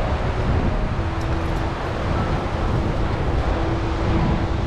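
Wind buffeting the microphone over the wash of breaking surf, a steady noisy rumble.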